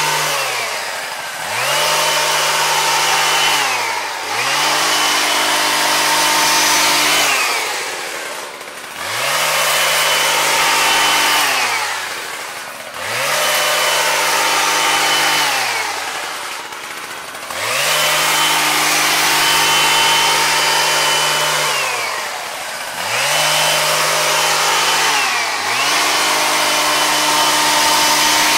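Husqvarna 122HD45 double-bladed hedge trimmer's small two-stroke engine running at high revs while cutting. It drops back briefly every few seconds as the throttle is eased, then revs up again, about seven times over.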